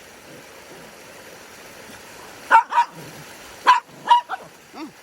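A dog barking in short, sharp yips, four or five of them in the second half, over a steady rush of running water.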